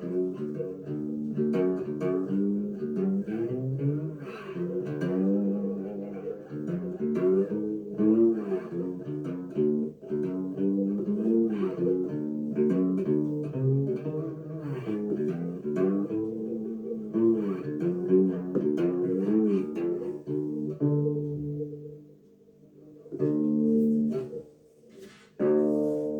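Cigar box guitar with a thin cardboard-and-wood body, played with a slide through its piezo pickup and an amp set with chorus and delay: a melody of gliding, sustained notes. Near the end it pauses briefly, then a few last notes ring out.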